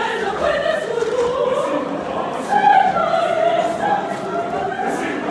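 A church choir of many voices singing together in long held notes, the pitch moving slowly from note to note.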